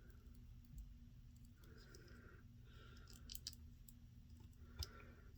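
Faint clicks of a small plastic action figure's joints as its limbs are bent and posed by hand: a few light clicks about three seconds in and a sharper one near the end.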